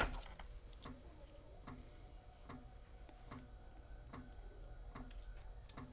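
Faint ticking at an even pace, a little more than once a second, over a low steady hum.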